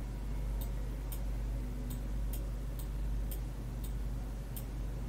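Computer mouse clicking, about seven sharp clicks at uneven intervals, over a steady low hum.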